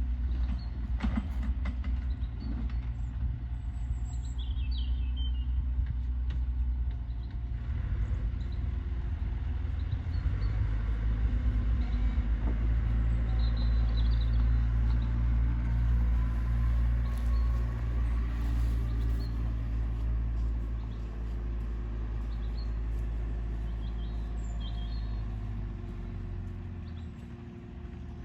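A steady low rumble, easing off a little near the end, with a few faint, short high chirps.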